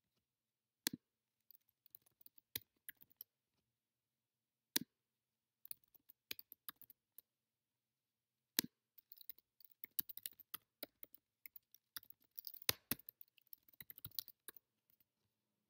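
Quiet computer mouse clicks and keyboard typing: a single sharp click every few seconds, with runs of quick key taps between them.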